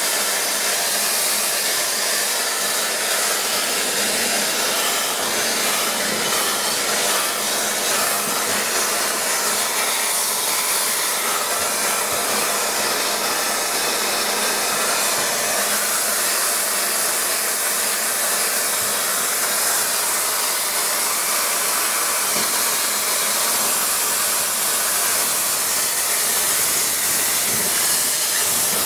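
Steady hiss of compressed air blowing through a Scorpion Whip Spinner air-whip nozzle as it spins inside a heating duct.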